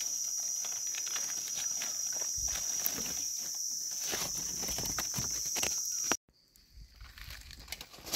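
A steady high-pitched insect drone over scattered rustling and crunching of dry leaf litter. Everything cuts off suddenly about six seconds in.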